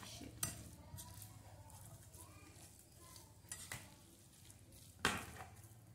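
A spoon stirring and scraping a mayonnaise chicken salad in a glass bowl, faint, with a louder knock about five seconds in.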